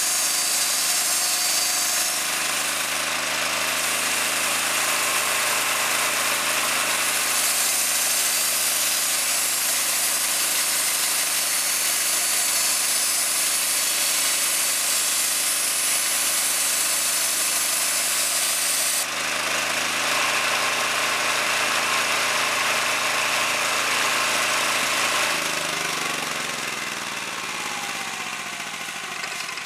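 Resaw bandsaw driven by an 11-horsepower gasoline engine, running under load as the blade cuts through a thick heart-pine plank, with a steady engine note and a high hiss of cutting. The hiss stops suddenly about two-thirds of the way in as the cut ends, and near the end the engine's pitch falls and the sound quietens.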